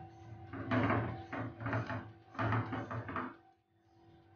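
Spatula stirring and scraping through a thick eggplant mash in a cooking pan, in three short spells that stop abruptly near the end. A faint steady hum runs underneath.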